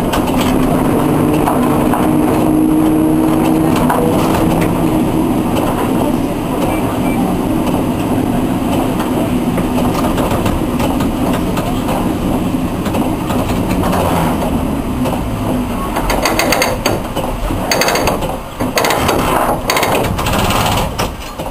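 Historic tram running on its rails, heard from the driver's cab: steady motor and wheel noise, with a held tone in the first few seconds. In the last five seconds or so it gives way to a run of sharp knocks and clatter.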